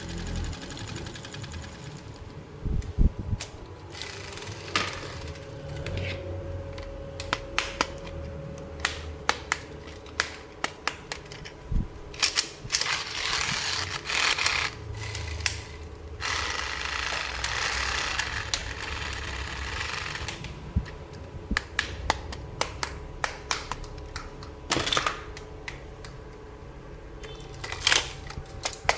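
Plastic toy pieces being handled: scattered sharp clicks and taps of plastic, with a few longer stretches of rustling, crinkling noise.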